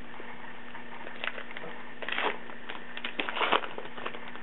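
Plastic wrapper of a baseball card pack crinkling as it is torn open and handled, in several rustling bursts, the loudest about two seconds and three and a half seconds in, over a steady low electrical hum.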